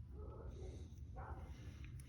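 A person breathing hard with effort, two short strained breaths, over a low steady rumble.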